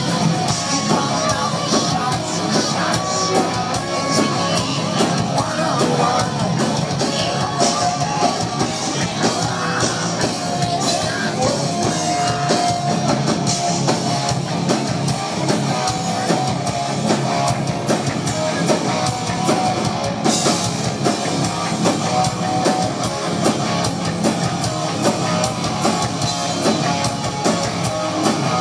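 Hard rock band playing live: electric guitar and drum kit.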